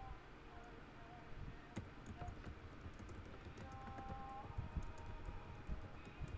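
Computer keyboard being typed on: a run of quick, irregular, faint key clicks over a low background rumble.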